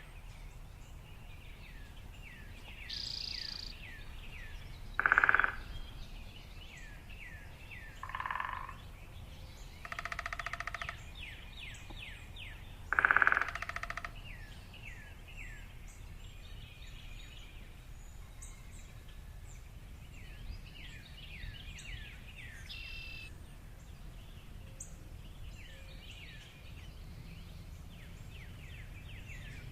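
Several birds chirping and calling: many quick falling chirps throughout, with a few louder calls, the loudest about five and about thirteen seconds in. A steady low rumble runs beneath.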